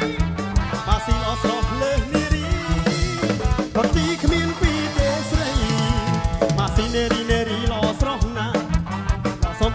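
Music with a steady drum beat.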